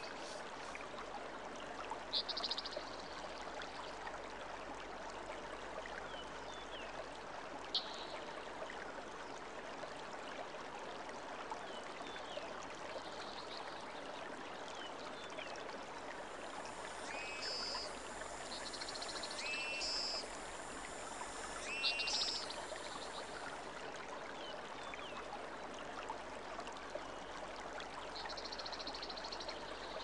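Steady rush of running water, with short bird calls now and then, the loudest about two seconds in and again about twenty-two seconds in.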